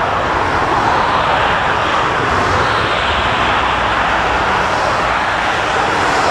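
Twin-engine jet airliner's engines running as it rolls out on the runway just after landing: a steady, even jet noise.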